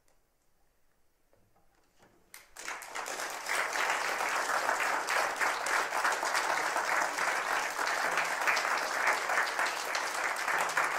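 About two seconds of near silence, then an audience starts applauding and keeps clapping steadily.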